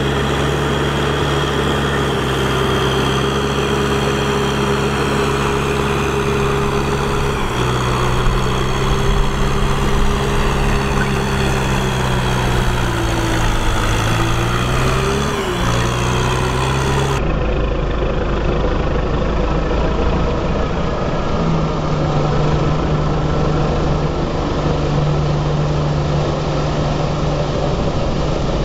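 Kubota M6040 tractor's four-cylinder diesel engine running steadily under load while it pulls a rotary tiller through flooded paddy mud. The engine note sags and recovers a little past the middle. Soon after, the sound changes abruptly to a duller recording of the engine at a lower, steady pitch.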